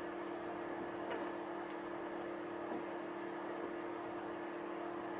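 Steady electrical hum with an even hiss, and a few faint light clicks as wires are handled at the bench.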